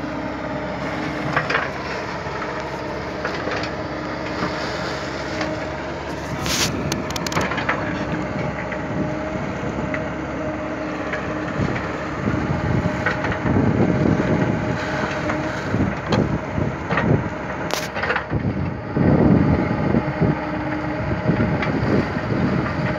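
Diesel engine of a backhoe loader running steadily, with a few sharp knocks and louder low rumbling stretches about halfway through and again near the end.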